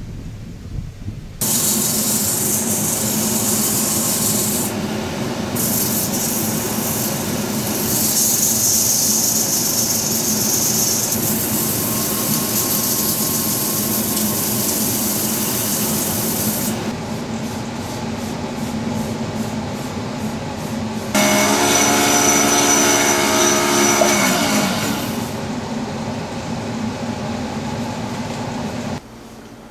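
Small wood lathe running, with abrasive rubbing against a spinning turned wooden cylinder as it is sanded, over a steady motor hum. Near the end a whine with several tones falls in pitch.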